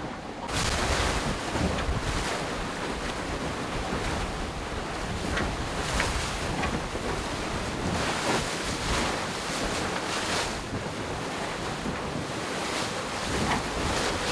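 Wind buffeting the microphone and water rushing past the hull of a racing sailboat under way, with repeated surges of wind and spray. The noise rises sharply about half a second in.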